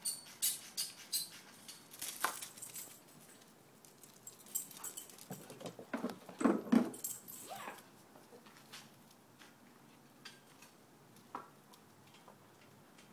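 Two dogs, a Rottweiler–golden retriever puppy and a border collie–shepherd mix, at play: scuffling and the patter of paws, with a cluster of louder short sounds about six to seven seconds in, then only faint ticks.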